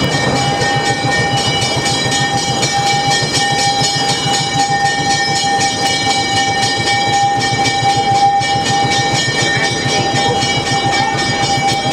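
Narrow-gauge diesel locomotive running close by, a loud steady engine sound with a high whine over a fast even pulsing, as the train's cars roll past.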